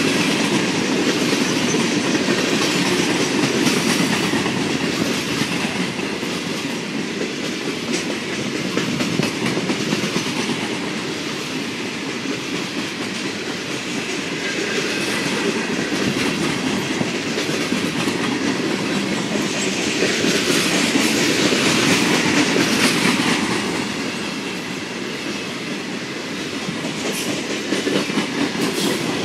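Loaded coal hopper cars of a freight train rolling past at speed. A steady rumble of steel wheels on rail, with scattered clicks over the rail joints. The loudness swells and eases every several seconds.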